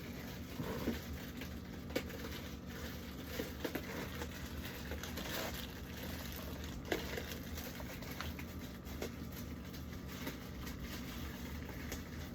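Scattered light knocks and clicks of a plastic fridge drawer being handled and cleaned, over a steady low hum.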